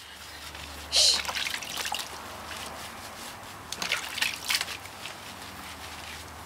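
Water sloshing and splashing in a plastic basin as hands scrub and lather a small wet dog's coat, with a louder splash about a second in and more splashing around four seconds.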